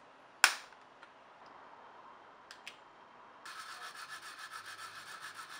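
A single sharp snap about half a second in, as a sheet of styrene plastic is bent and breaks. From about three and a half seconds in, a nail file rasps against a styrene part in quick, even back-and-forth strokes.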